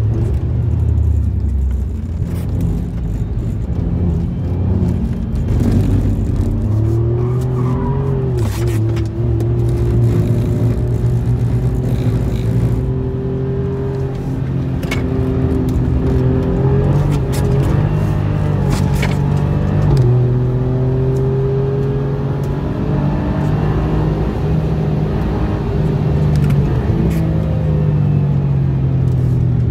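Alfa Romeo Giulia Quadrifoglio's twin-turbo V6 heard from inside the cabin while lapping a wet track. Its pitch climbs under acceleration and steps down suddenly at gear changes and lifts, over steady tyre and road noise.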